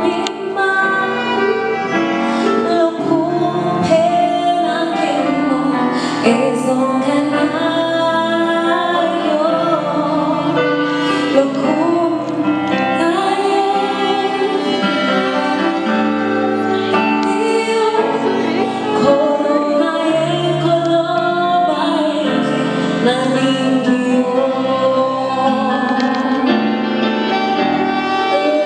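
Music: a woman singing a song over instrumental backing.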